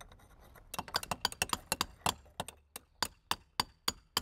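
Steel pointing chisels tapped with brick hammers, chipping old mortar out of the head joints between bricks. Rapid sharp metallic taps, about four a second, start under a second in.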